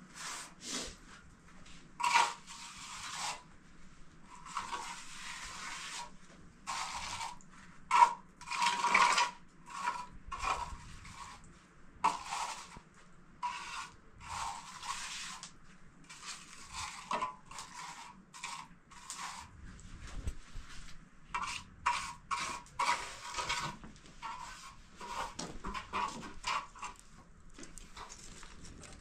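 Repeated irregular scraping strokes on a hard surface, each lasting up to about a second, with a couple of sharper knocks among them.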